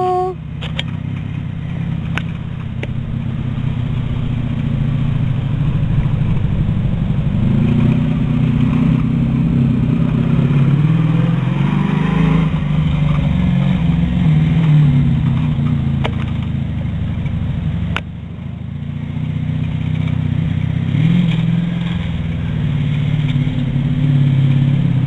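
Cruiser motorcycle engine running while a learner rides it at low speed, the revs rising and falling unevenly as the throttle is opened and eased off.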